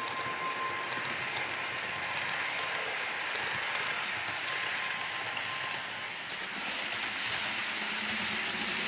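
Model IEP passenger train running along the layout: a steady rushing of wheels on rail and motor noise, with a low hum coming in about seven seconds in.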